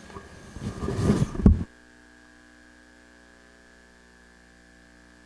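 A few loud knocks and rustles at the podium microphone. They cut off about a second and a half in, and a steady electrical mains hum from the sound system follows.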